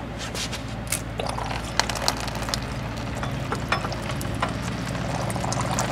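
Scattered metal clicks and taps of a pry bar working at an old, stuck water pump from above to break it loose, over a steady low hum.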